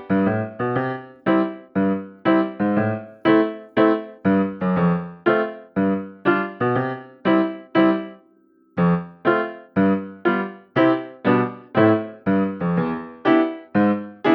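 Background music: a bouncy piano or keyboard tune played in short, evenly spaced notes, about three a second, pausing briefly near the middle.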